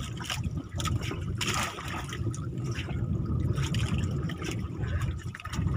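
Sea water splashing and trickling at the side of a small wooden outrigger boat as a handline fish is pulled up by hand, over a steady low rumble.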